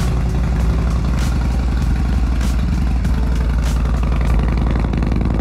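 Harley-Davidson V-twin engine idling steadily, running on a jump start after its battery went dead.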